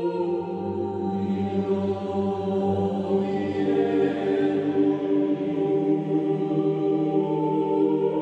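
Background music of slow, held choir-like tones that change note only every few seconds, with a low drone beneath them for the first three seconds.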